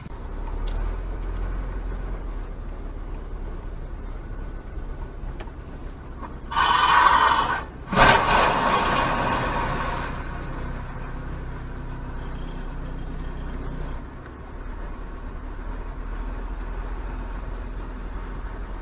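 A truck overturning onto its side, heard from a car's dashcam: a loud grinding crash about six and a half seconds in, then a sharp bang at about eight seconds that trails off over two seconds. The recording car's low engine and road hum runs underneath.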